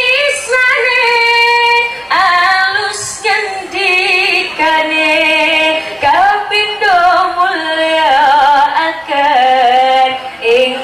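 A woman singing sholawat, an Islamic devotional song, solo in phrases of a few seconds, her high voice sliding and trembling through ornamented, melismatic runs.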